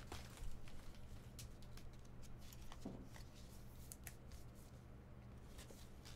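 Faint, scattered clicks and slides of a stack of Bowman baseball cards being spread and flipped through by hand, over a steady low hum.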